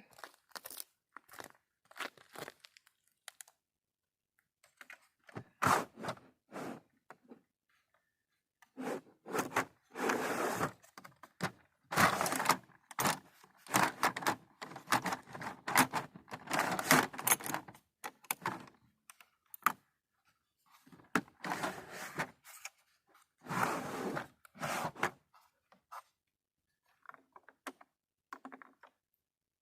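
Irregular clinks, scrapes and knocks of hand tools and bolts being worked while fastening a light bar to its roof brackets, in bursts that are busiest through the middle.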